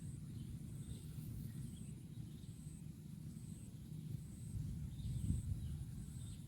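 Cow tearing and chewing grass: a dense, rough, low rustling that goes on without a break, with a slightly stronger tear about five seconds in. A faint high chirp repeats a little faster than once a second.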